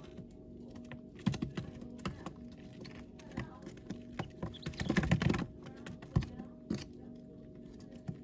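Baby chicks pecking: irregular light taps and clicks, bunched into a quick run about five seconds in, over a steady low hum.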